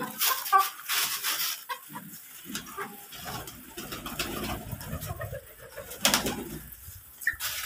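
Domestic pigeons cooing as a flock, with scattered short clicks and rustles from the birds pecking at grain.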